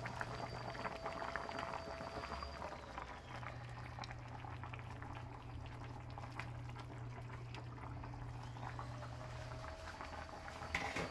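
Chicken curry bubbling and popping as it simmers in a stainless steel pan, with a steady low hum underneath.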